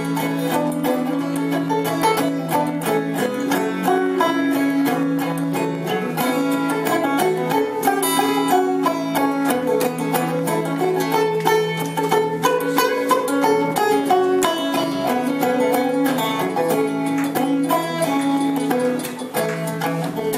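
Instrumental break of a folk song played on banjo, acoustic guitar and upright double bass: dense picked banjo notes over guitar strumming and a steady plucked bass line, with no singing.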